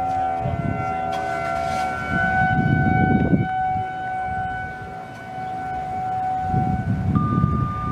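Federal Signal 2001-SRN outdoor warning sirens sounding a steady wail, several at slightly different pitches, swelling and fading in loudness every few seconds as their rotating heads sweep past. In the first second or so a lower tone glides downward, the nearest siren winding down.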